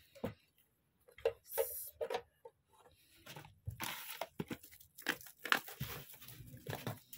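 Irregular rustling, crinkling and light knocks from handling packaging: plastic bags and small cardboard boxes being unwrapped from guitar effects pedals.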